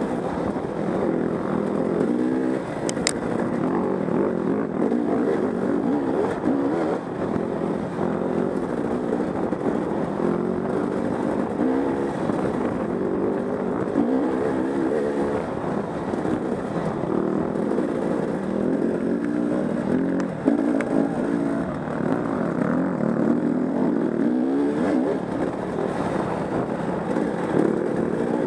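Off-road motorcycle engine heard from on board, revving up and down again and again as the rider accelerates and backs off along a trail.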